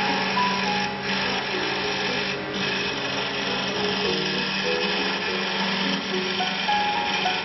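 Double-axis, double-blade CNC wood lathe turning two wooden blanks at once, with a steady, shrill cutting and machining noise.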